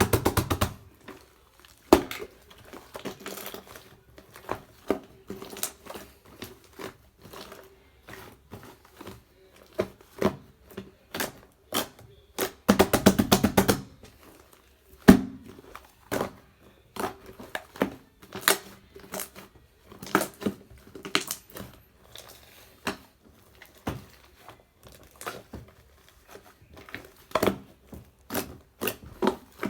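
Marbled slime mixed with shaving foam being squished and pressed by hand, giving sticky clicks and small air-bubble pops. There is a fast run of crackling at the start and another about halfway through, then one loud pop.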